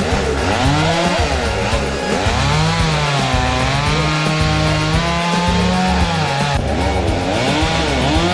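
Chainsaw running and cutting wood, its engine pitch rising and falling repeatedly as it revs, over background music.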